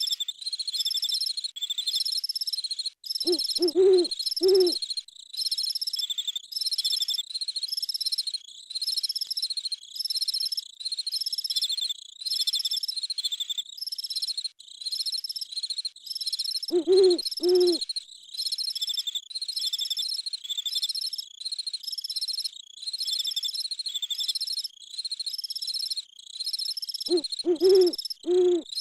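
Night-forest ambience: insects chirping in a steady, evenly repeating high-pitched pulse, with an owl hooting in short series of low hoots, three about four seconds in, two around the middle, and three more near the end.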